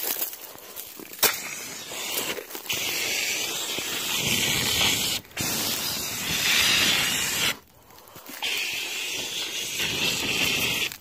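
Small handheld fire extinguisher discharging onto smouldering embers: a loud, steady hiss that starts a few seconds in and is let off in bursts, with a brief break and then a longer pause about three-quarters through before spraying again.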